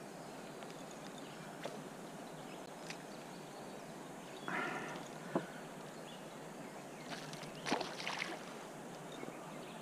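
A hooked fish splashing at the water surface near a canoe: a short splash about halfway through, then a flurry of splashes near the end, over a faint steady background hiss.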